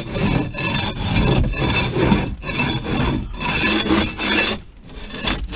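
Long-handled floor scraper scraping a fiberglass boat floor in short repeated strokes, about one or two a second, stripping off leftover carpet glue and grime. There is a brief lull about four and a half seconds in.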